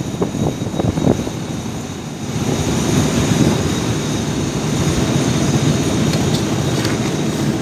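Three coupled State Railway of Thailand diesel-electric locomotives running light past, with a steady low engine rumble. A few sharp knocks of wheels on the track come in the first two seconds, after which the rumble continues evenly.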